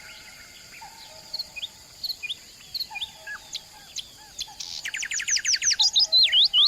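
Wild songbirds calling and singing: scattered short chirps and slurred whistles, then about two-thirds of the way through a louder, fast run of rapid sweeping notes that is loudest near the end.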